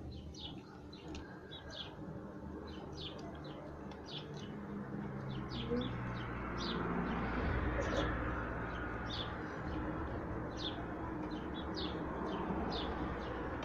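Small birds chirping: short, high chirps come every second or so, irregularly, over a low steady background hum.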